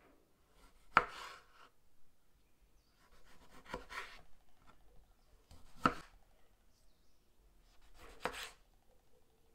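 Kitchen knife slicing small tomatoes on a wooden cutting board: four cuts a couple of seconds apart, each a short crisp slicing sound with a sharp tap of the blade against the board.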